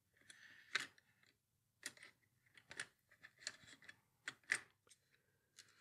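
Ballpoint pens and pencils clicking against one another as a hand shuffles them around in a cardboard box: a dozen or so faint, irregular light clicks.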